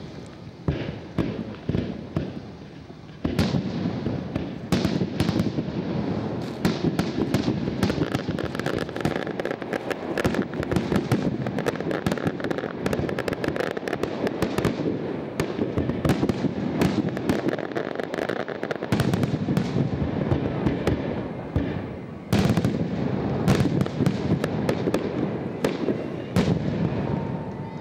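Aerial fireworks display: a dense barrage of shell bursts and crackling, with sharp bangs throughout. It grows louder and denser about three seconds in and again about twenty-two seconds in.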